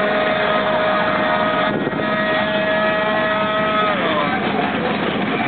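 Scooter engine at full throttle, held at one steady high pitch, then falling away about four seconds in as the throttle is released.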